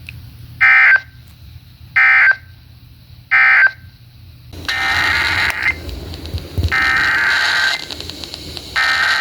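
Emergency Alert System digital data bursts on FM radio: three short, loud, screeching end-of-message bursts about a second and a quarter apart. After a pause, the longer header bursts of the next alert begin over louder radio hiss, two of them complete and a third starting near the end.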